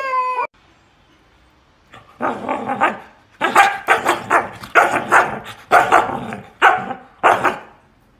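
A husky's howl cuts off about half a second in. After a pause of about a second and a half, a husky gives a run of about eight rough, bark-like vocalisations, roughly two a second.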